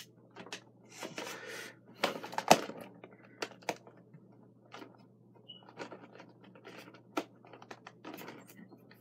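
A cardboard and plastic collector's box being opened by hand: irregular clicks, taps and short scrapes, with a loud click about two and a half seconds in.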